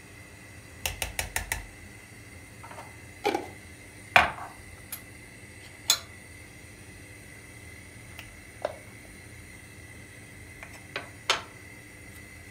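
A metal spoon clinking and tapping against a stainless steel saucepan and a small glass spice jar. There is a quick run of five taps about a second in, then scattered single knocks and clinks, the loudest about four seconds in.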